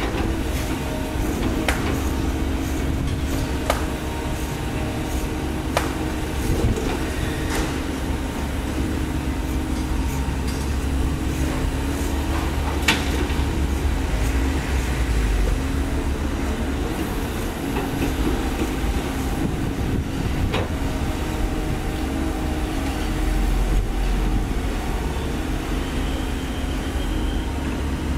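Komatsu PC130 hydraulic excavator's diesel engine running steadily under working load, with a few sharp knocks now and then.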